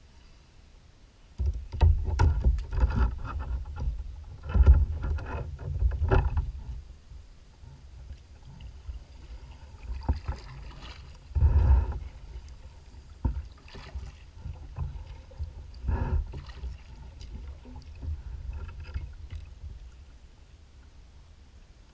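Water slapping and lapping against a plastic kayak's hull in irregular bursts, with a run of knocks and splashes early on and single surges about halfway and two-thirds of the way through.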